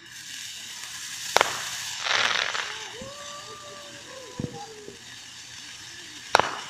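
Fireworks going off: a sharp bang about a second and a half in, then a short crackling burst, and another sharp bang near the end. A steady held tone sounds in between, for about two seconds.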